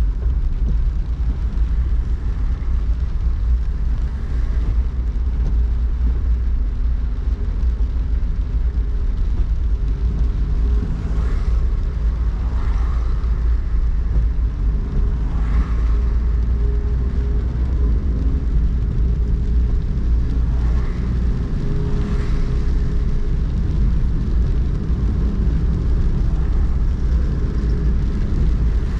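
Steady low rumble of a car driving on wet city streets, heard from inside the car, with a few brief hissing sounds now and then.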